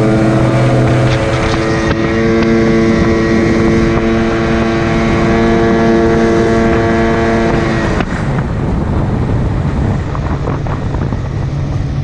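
Jet-drive outboard motor on an aluminium jon boat running at steady high throttle across the water, holding an even note with no cavitation. About eight seconds in the note drops suddenly as the throttle comes back, leaving a lower running sound. Wind buffets the microphone.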